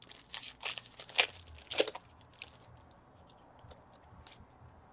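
Foil trading-card pack being torn open and crinkled: a quick run of sharp crackles over the first two seconds, then lighter ticks as the cards are handled.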